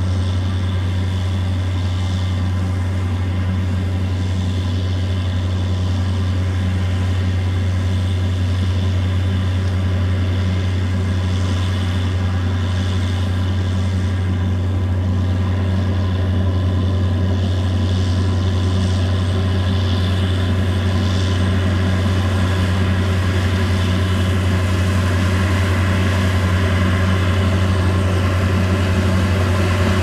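Dewulf RA 3060 self-propelled potato harvester at work: its diesel engine and machinery run steadily with a strong deep hum, growing slightly louder in the second half.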